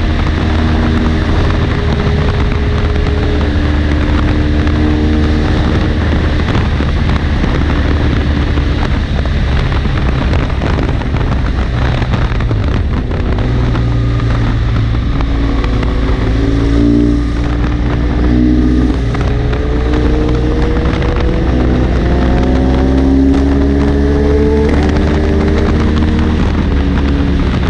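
BMW GS Adventure motorcycle engine under way, with heavy wind rush on the microphone. In the second half the engine note climbs several times with brief drops between, as the bike accelerates through the gears.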